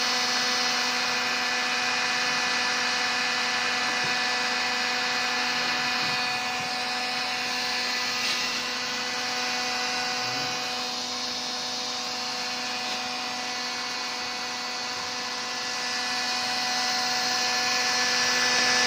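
Handheld hair dryer running steadily: a motor whine with a steady hum over a rush of air. It dips somewhat in loudness midway and swells again near the end.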